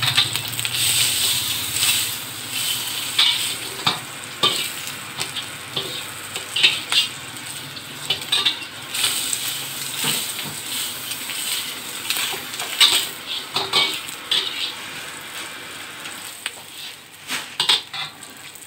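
An egg frying in hot oil in a wok, sizzling steadily, while a metal spatula scrapes and clinks against the wok as the egg is pushed around and lifted.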